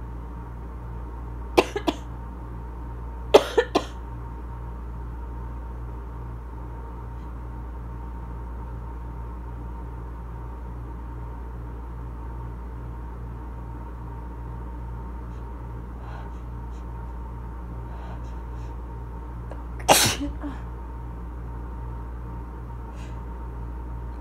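A person's asthma cough: two quick fits of three short coughs each in the first few seconds, then one louder burst about 20 seconds in, over a steady low hum.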